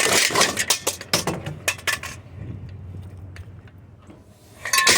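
Rapid clattering and clinking of scrap metal being handled for about two seconds, then a low steady hum with a few scattered knocks. A loud rush of noise comes in near the end.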